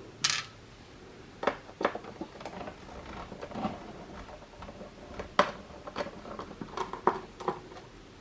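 Irregular sharp clicks and taps of a screwdriver and small hardware being handled while the screws holding an Xbox One S's optical drive are taken out.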